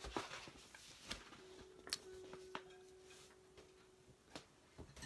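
Near silence with a few light clicks and taps from things being handled at a desk, and a faint steady hum-like tone for a couple of seconds in the middle.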